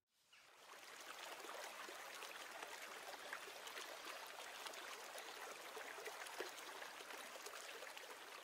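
Whitewater of a fast mountain river rushing over boulders: a steady rushing hiss that fades in over the first second.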